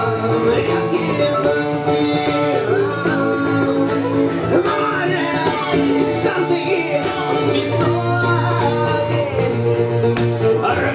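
Live band playing a song led by plucked string instruments such as guitar, with a voice that sounds sung.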